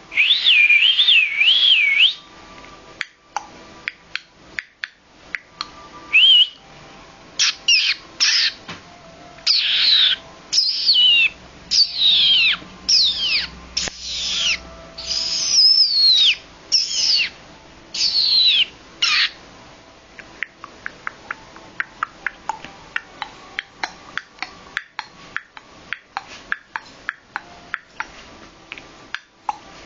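Siberian Husky cross German Shepherd puppy whining in high-pitched calls: a warbling call at the start, then a string of short falling whines, one longer than the rest. The calls are followed by a run of light clicks and taps for the last third.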